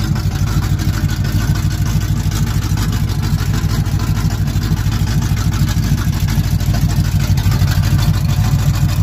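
1984 GMC pickup truck's engine idling through open exhaust pipes with no mufflers: a steady, deep rumble of rapid, even exhaust pulses.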